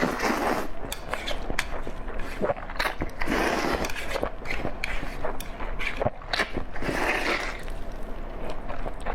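Close-miked chewing and mouth sounds of a person eating: many sharp clicks, with a few longer noisy stretches about a third of a second, three seconds and seven seconds in.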